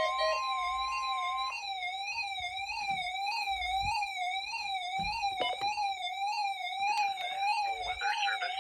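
NOAA Weather Radio 1050 Hz warning alarm tone, held steady and cutting off about a second and a half in, over a weather radio's alert siren that warbles up and down about three times a second and keeps going after the tone stops. Both are set off by the weekly test of the warning alarm. A few soft thumps and clicks come midway.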